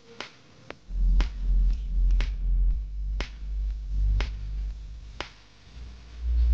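Background music with a regular finger-snap beat and a deep bass line.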